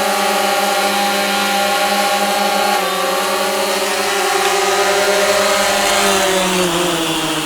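XIRO Xplorer quadcopter's motors and propellers whining steadily as it descends in an automatic landing; the pitch drops a little about three seconds in and slides lower near the end as it settles.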